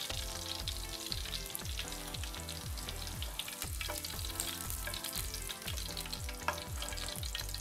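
Fish pieces frying in hot oil in a skillet, a steady crackling sizzle, with a spoon clicking and scraping against the pan as pieces are lifted out. Background music with a deep, repeated falling bass beat plays underneath.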